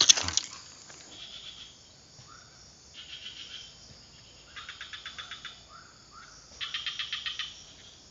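Insect chirping in short, rapidly pulsed high trills, four bursts a second or so apart, with a few short rising calls between them. A brief sharp knock right at the start is the loudest sound.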